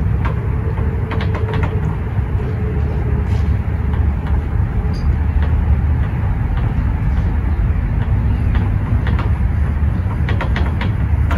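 A steady low rumble of outdoor background noise. Faint short squeaks come near the start and again near the end.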